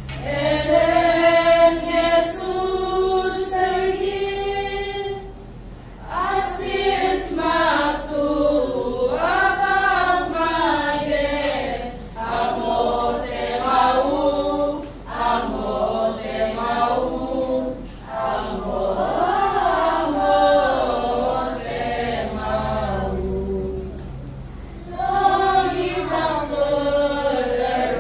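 Children's choir singing without accompaniment, phrase after phrase with short pauses between lines.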